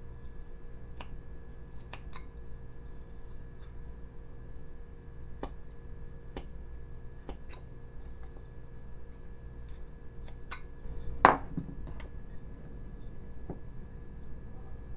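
Carving knife slicing small chips from a basswood figure, each cut a sharp, dry click, spaced a second or more apart. About two-thirds of the way through there is one much louder knock with a short ring.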